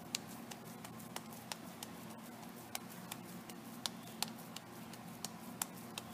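Hands working a ball of soft maida dough on a wooden board: irregular light taps and clicks, about a dozen, over a faint steady hum.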